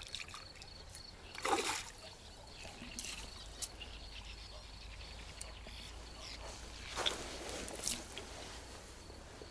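A hooked carp splashing at the surface close to the bank as it is played in, with short splashes about a second and a half in and again around seven and eight seconds in.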